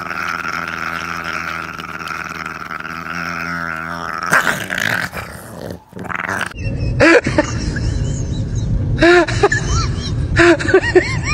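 Dogs growling as two pugs tussle over a chew toy; a little past halfway the sound changes to several short, sharp yelps that rise and fall in pitch as two Shiba Inus squabble.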